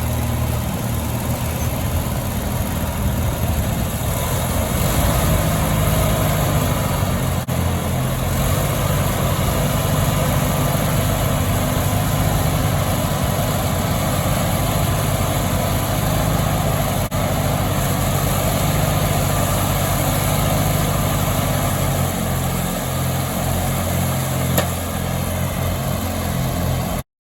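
Riding lawn mower engine running steadily, powering a home-built pulling machine through its hydrostatic drive. The sound cuts off suddenly near the end.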